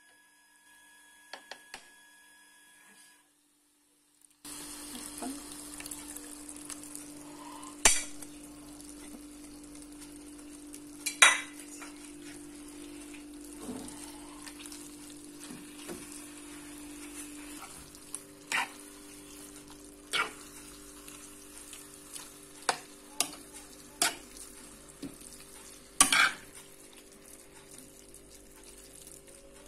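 Grated courgettes sizzling as they fry in a pan, starting about four seconds in, while a metal spoon stirs them and clinks against the pan now and then; the loudest knocks come about 8, 11 and 26 seconds in.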